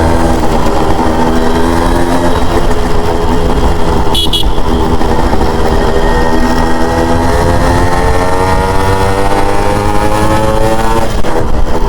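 Yamaha RX100's two-stroke single-cylinder engine under way, its pitch climbing steadily for several seconds as the bike accelerates, then dropping sharply near the end. A brief high-pitched horn toot sounds about four seconds in.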